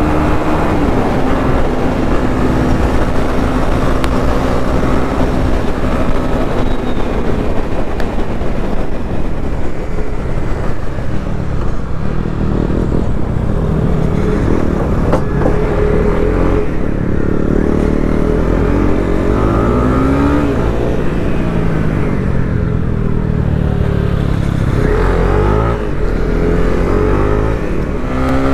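Honda CB300R's single-cylinder engine under hard acceleration, running steadily at first, then rising in pitch and dropping back again and again in the second half as it is wound out through the gears.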